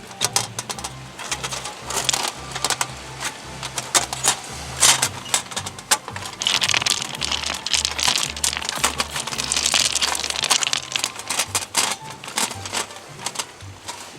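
Background music with a steady, repeating bass line, over many sharp clicks and crackles and a stretch of hissing noise in the middle.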